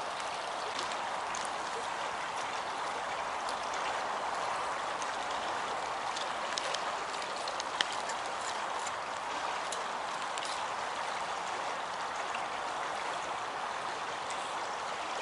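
Shallow river running over stones: a steady rush of water, with a few faint clicks scattered through it.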